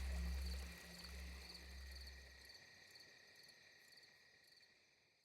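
Crickets chirping in a night-ambience soundscape, with a low rumble under them that stops about halfway; the whole soundscape fades out to silence at the end.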